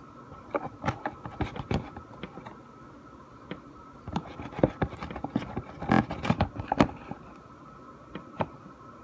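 Stick stirring and scraping thick glue-based slime in a container: irregular taps, clicks and sticky smacks, busiest about a second in and again from about four to seven seconds in, over a faint steady hum.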